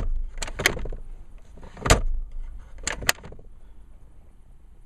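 About six sharp plastic clicks and knocks from the glove box and its knockout tabs being handled and seated, the loudest about two seconds in; then quiet from about three seconds in.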